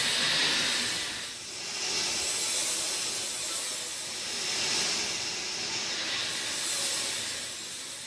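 Steady rain falling: a dense, even hiss that swells and eases about every two seconds.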